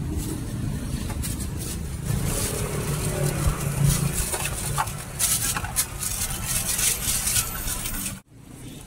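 Street ambience dominated by the steady hum of road traffic, with faint voices and a few light clicks; the sound drops away abruptly near the end.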